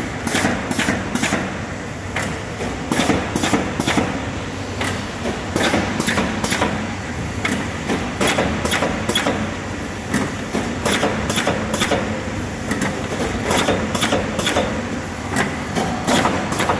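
Automatic corrugated carton partition assembly machine running: a steady mechanical hum under a rapid run of sharp clacks from its mechanisms, about two to three a second.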